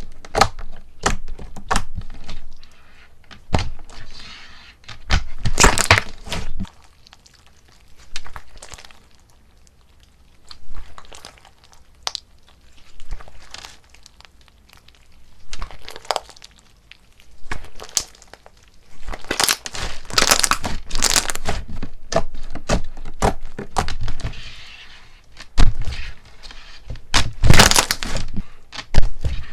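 Crunchy slime being squeezed and pressed, giving crisp crackling and popping in irregular bursts, with a few denser, louder stretches of cracking.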